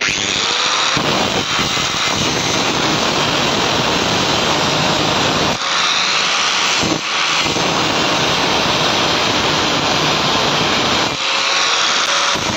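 Handheld angle grinder with a thin cutting disc, switched on and running at full speed: a loud, steady high-speed whir with a few brief dips.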